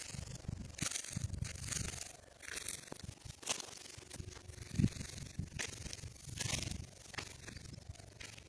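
Irregular rubbing and rustling noise with soft low thumps, a short brushing sound every second or so.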